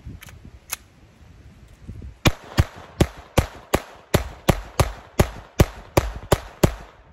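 Glock 44 .22 LR pistol firing a rapid, even string of about thirteen shots at roughly three a second, with no pause or stoppage. Two light clicks come a couple of seconds before the first shot.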